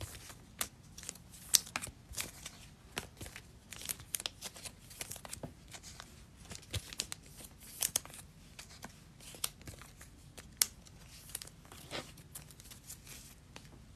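Foil trading-card pack wrappers crinkling as they are handled, with scattered sharp crackles and ticks, a few of them louder.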